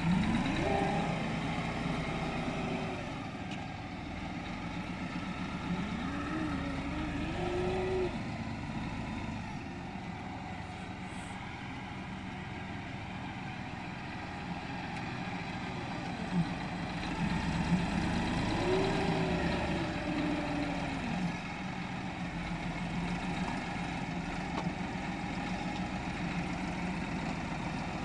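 Tractor engines running: the Deutz-Fahr 5080D's engine revs up and drops back several times as it works its front loader, lifting and dumping manure into a spreader, over the steady idle of a second tractor.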